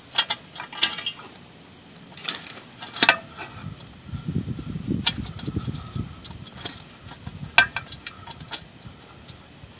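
A metal skid plate being pushed and shifted by hand against a Yamaha WR250R's underside while test-fitting it: scattered light clicks and knocks, with a stretch of rubbing about halfway through.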